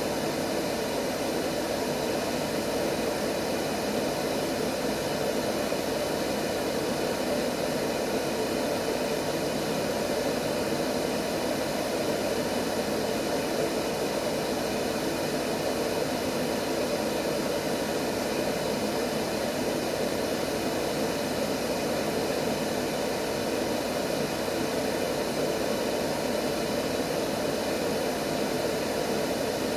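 Steady, unchanging white noise, an even rushing hiss with most of its weight in the low middle range, used as a sleep sound for babies.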